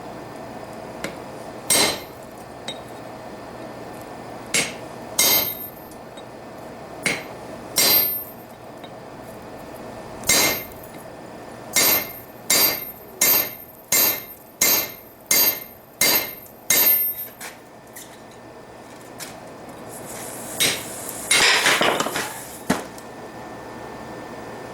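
Hand-forging at the anvil: separate hammer blows on steel, each with a short high ring, first spaced out, then a quick run of about one and a half blows a second. Near the end comes a louder, noisier cluster of knocks.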